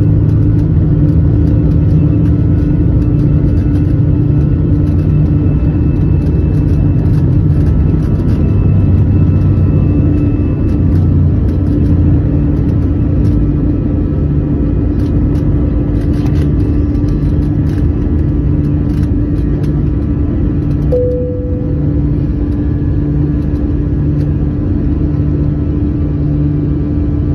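Jet airliner's engines at takeoff power heard from inside the cabin: a loud, steady rumble with a constant hum, through the takeoff roll and lift-off.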